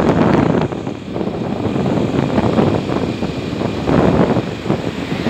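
A motor scooter riding along the road, its engine and road noise under wind buffeting the microphone.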